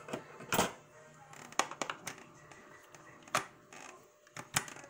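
A hand mixer being handled before whipping: a handful of short, sharp clicks and knocks of plastic and metal, with no motor running.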